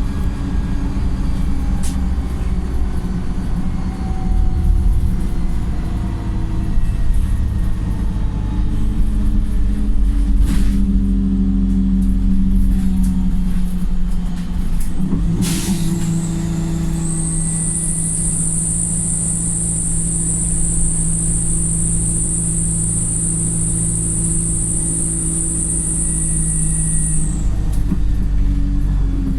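Wright StreetLite single-deck bus heard from on board, its diesel engine running with a steady drone that drops and shifts pitch twice, about ten and fifteen seconds in, each time with a short sharp burst of noise. A high steady whine runs from about seventeen to twenty-seven seconds in.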